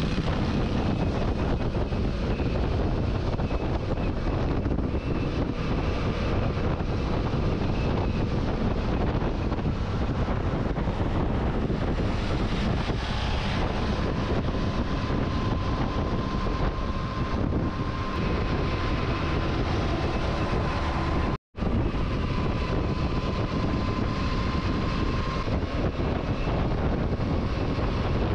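Yamaha Tracer 700 motorcycle riding at highway speed: wind rushing over the microphone, with engine and road noise underneath. There is a split-second dropout about three-quarters of the way through.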